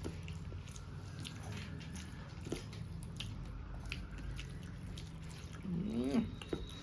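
Faint wet squishing and small clicks of rice being mixed by hand with boiled bitter gourd, and chewing. A short hummed voice comes near the end.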